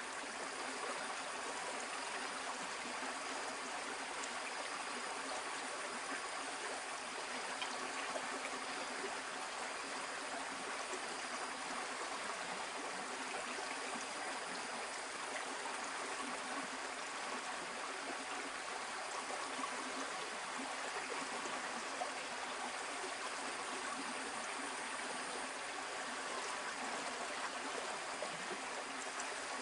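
Shallow stream water flowing and trickling over rocks, a steady rush with no breaks.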